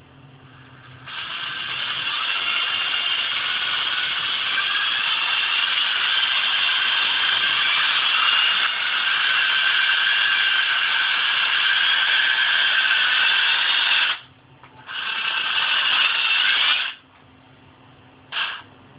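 Cordless drill running off a laptop charger's wires held to its battery terminals: the motor and gearbox whir up from a slow start over a couple of seconds and run at speed for about thirteen seconds. It cuts out, runs again for about two seconds, then gives one short burst near the end.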